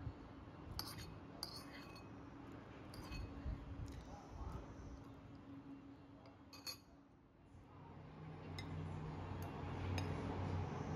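Metal spoon clinking and scraping against a ceramic bowl, a handful of light clinks spread over the first several seconds. A steady low hum comes in near the end.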